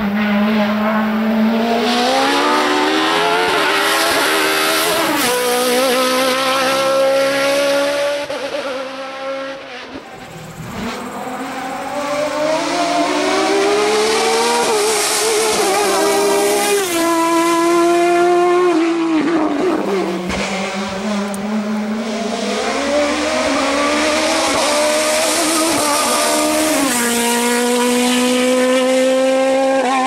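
Sports-prototype race car engines at high revs, accelerating hard through the gears. The pitch climbs and drops back at each gear change, and the sound fades briefly about ten seconds in before the next surge.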